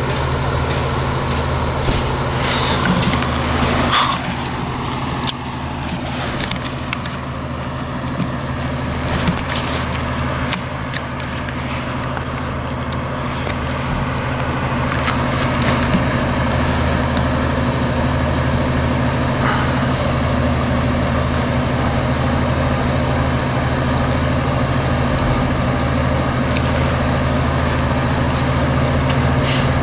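A vehicle engine idling steadily with a low, even hum, with a few short clicks and knocks scattered over it.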